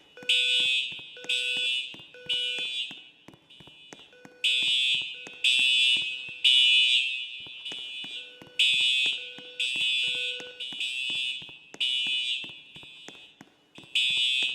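School fire alarm horns sounding short, loud, shrill blasts in groups of three, with a pause between groups. This is the temporal-three evacuation signal.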